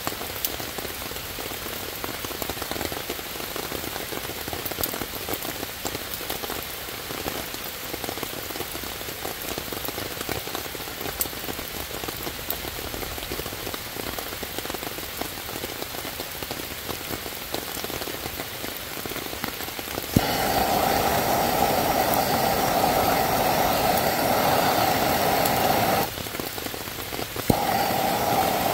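Steady rain falling on wet leaves and ground. About two-thirds of the way through, a click is followed by a handheld gas torch burning with a steady, loud hiss for about six seconds. It cuts off, then clicks and burns again near the end.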